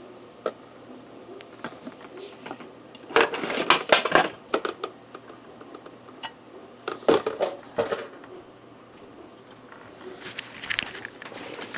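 Clicks and rustling of product packaging being handled and pried at while trying to open it, busiest in two clusters about three seconds and seven seconds in.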